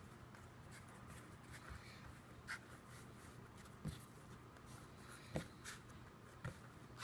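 Faint rubbing and handling of soft homemade flour-and-salt dough being kneaded by hand, with four short soft knocks spread through it.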